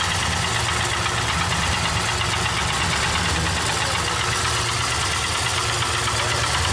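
Pontiac Trans Am engine idling steadily with a fast, even knock in its running: the knocking noise the owner is showing.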